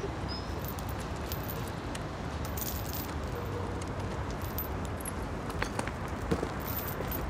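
Steady outdoor rushing noise, with a single short bird chirp right at the start and a few faint clicks in the last couple of seconds.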